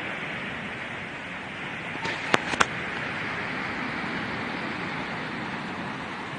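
Steady rush of surf on a sand beach, with two sharp clicks close together about two and a half seconds in.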